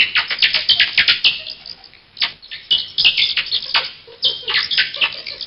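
Bats squeaking: a rapid run of shrill chirps, several a second, easing off briefly about two seconds in and again about four seconds in.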